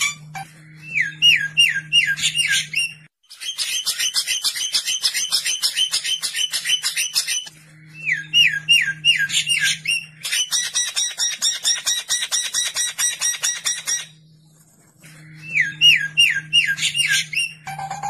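Edited songbird tutor recording of harsh calls: short runs of quick down-slurred whistled notes alternate with long, fast, harsh chattering rattles, the same phrases coming round again as in a loop.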